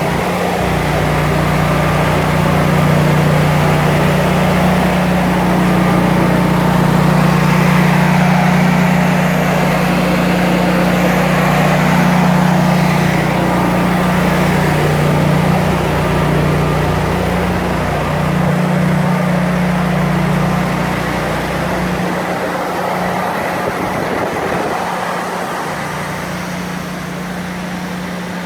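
Generator engine running steadily with a constant hum; its lowest rumble drops away about three quarters of the way through.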